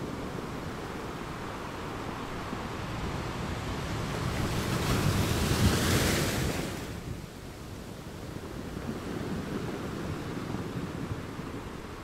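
Sea waves on a shore: a steady rush of surf in which one wave swells, breaks with a loud hissing wash around the middle, and falls away quickly about seven seconds in.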